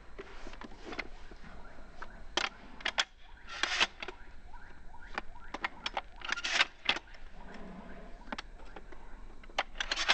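Pump-action shotgun being handled and cycled: about five short metallic clacks and rattles of the slide and shells, spaced a second or more apart.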